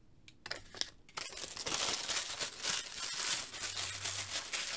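Crinkling and rustling of packaging being handled. There are a few light clicks about half a second in, then continuous crinkling from about a second in.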